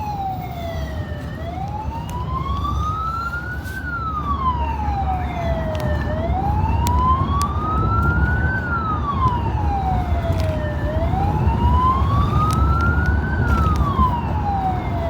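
Emergency siren in a slow wail, its pitch rising and falling about every five seconds, three cycles in all, over the steady rumble of a moving vehicle.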